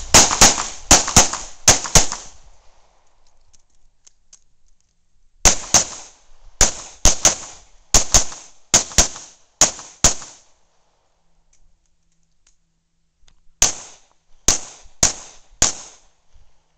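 Handgun shots fired in three quick strings: about six rapid shots, a pause of roughly three seconds, about ten more, another pause, then four closing shots.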